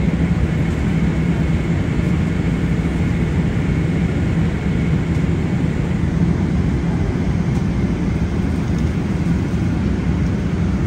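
Steady jet airliner cabin noise heard from inside the cabin: an even rush of engine and airflow with a low hum and a faint steady high whine.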